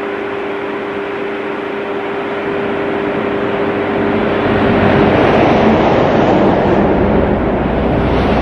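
A road vehicle passing on the highway. Its tyre and engine noise swells over several seconds and is loudest a little past halfway, with a deep rumble in the second half, over a steady low hum.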